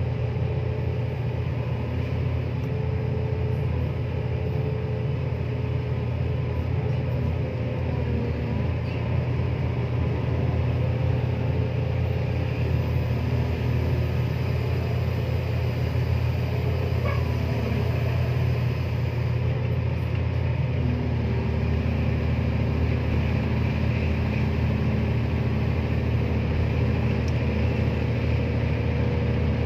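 Diesel engine and hydraulics of a Komatsu excavator working a clamshell grab, a steady low rumble. Its tone shifts a little over two-thirds of the way through.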